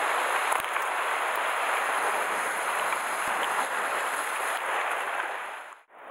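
Sea surf washing against a rocky shore: a steady rushing noise that fades out near the end.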